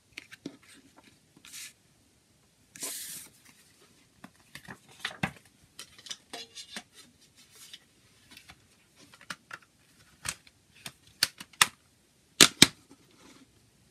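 A CD booklet and plastic jewel case being handled: the paper booklet rustles and slides, then sharp plastic clicks and taps come near the end as the case is closed and set down, the loudest a double click.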